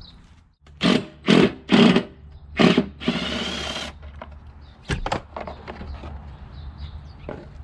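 Cordless drill running in short bursts: four quick runs, then a longer one of about a second, backing the screws out of the plastic cover over a self-propelled lawn mower's drive pulley. A single sharp knock follows about five seconds in.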